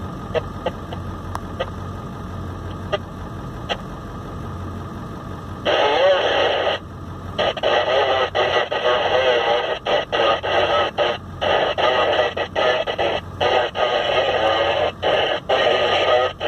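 A two-way radio in the vehicle: a low steady hum at first, then about six seconds in a loud, crackly, garbled transmission comes through and keeps cutting in and out.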